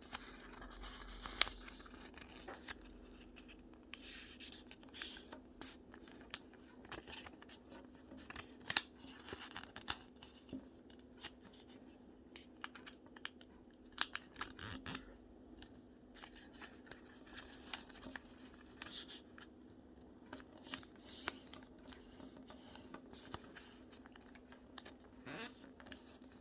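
Sheet of origami paper being handled and folded: a run of short, scattered crackles and rustles as the paper is slid, turned and creased by hand, over a faint steady hum.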